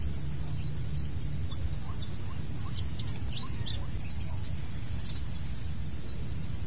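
A few short, faint bird chirps about two to four seconds in, over a steady low rumble and a thin, steady high-pitched whine.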